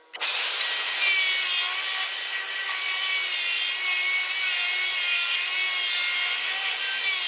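Metal being cut on a lathe: a steady hissing cutting noise with a faint thin whine and wavering squeals from the tool on the work. It starts abruptly.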